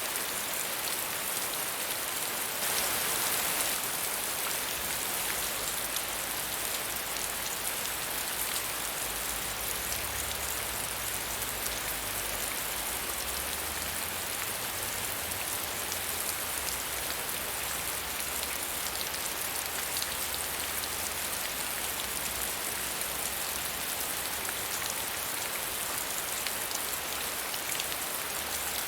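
Steady medium rainfall: a dense, even patter of drops on surfaces, slightly heavier for a moment about three seconds in.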